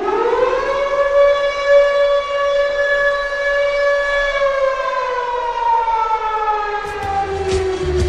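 Minnesota North Stars goal horn, a siren-type horn: it winds up in pitch, holds one steady tone, then slowly winds down over the second half. Low thumping begins underneath about a second before the end.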